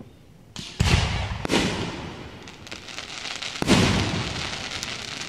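Aerial fireworks shells bursting overhead: a small pop, then loud booms about a second in, half a second later, and again near the four-second mark. Each boom trails off in a long echoing rumble, with scattered crackles between them.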